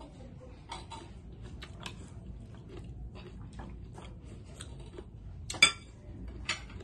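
Crunchy chewing of raw cucumber, a run of small crisp clicks, with one sharp clink of a utensil on a dish about five and a half seconds in.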